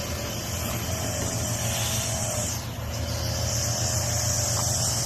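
Pork kebabs sizzling on a wood-fired grill: a steady hiss that dips briefly about halfway through, over a low steady rumble.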